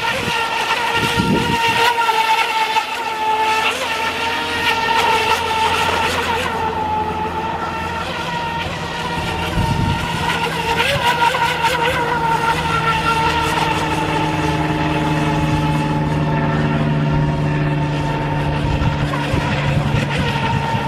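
Feilun FT011 electric RC speedboat running flat out across the water, its 4S electric motor giving a steady high-pitched whine whose pitch dips slightly and recovers as it turns.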